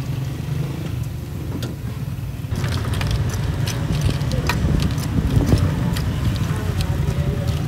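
Steady low rumble of a motor vehicle engine running. From about two and a half seconds in, metal tongs click and scrape against a stainless steel tray as fried food is scooped into a foil tray.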